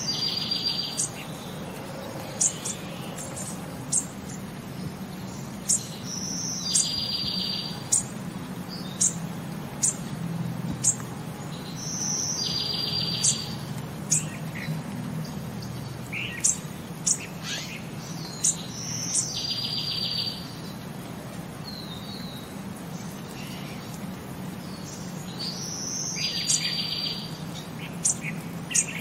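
Birdsong ambience: a short trill repeating about every six and a half seconds, with sharp single chirps scattered between and a steady low hum underneath.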